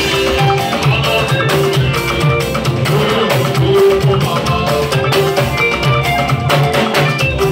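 Loud music with a steady drum beat and guitar, with some singing.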